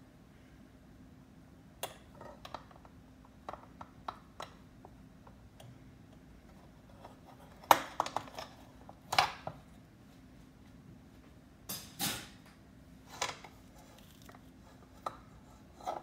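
Metal clicks and clinks from a rotisserie spit being taken apart: its holding forks loosened and slid along the steel rod, knocking against the rod and a metal drip pan. The knocks come irregularly, loudest in a cluster about halfway through and again a few seconds later.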